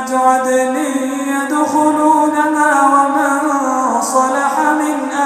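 A male reciter chanting the Quran in slow, melodic tajweed, holding out notes that glide up and down in pitch.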